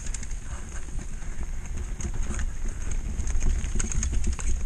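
Mountain bike rattling down a rocky dirt singletrack: tyres crunching over stones, with a steady low rumble and a rapid, irregular clatter of clicks and knocks from the bike.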